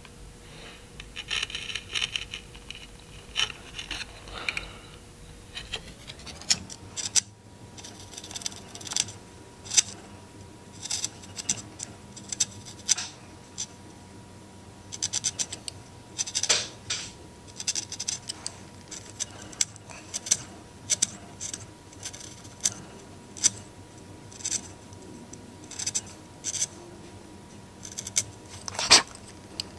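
A hand chisel paring wood: dozens of short, irregular scraping cuts as its blade, held flat against a steel 1-2-3 block used as a paring guide, shaves the sides of the dovetail sockets down to the floor. The cuts come about one to two a second, some in quick runs, with a sharper scrape near the end.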